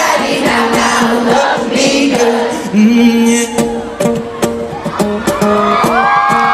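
Large concert crowd singing and shouting a chorus line together over steady live music from the stage, with scattered cheers.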